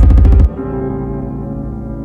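Background music: a loud beat with a quick stuttering rattle stops about half a second in, leaving held chords ringing on.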